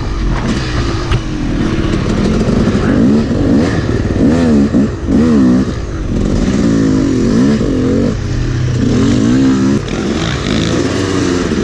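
Two-stroke Yamaha YZ250 dirt bike engine revving up and falling back again and again as the throttle is worked on a trail ride.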